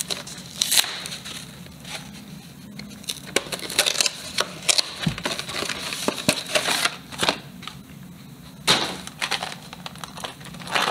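Cardboard box and clear plastic blister packaging of a Pokémon TCG pin collection box being opened and handled: irregular crackling, crinkling rustles and clicks as the box is opened and the plastic tray is slid out.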